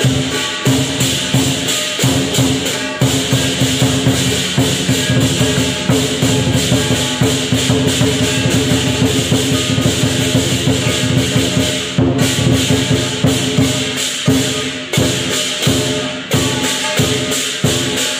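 Lion dance percussion: a Chinese drum, clashing cymbals and gong played continuously in a dense, driving beat, the cymbals' bright metallic clash filling the top.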